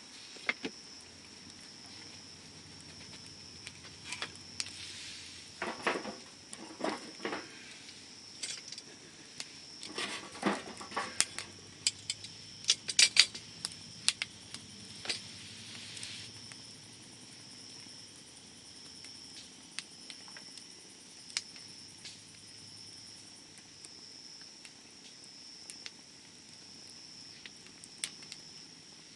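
Wood campfire crackling and popping, with scattered sharp snaps and denser bursts of crackles about 6, 10 and 13 seconds in.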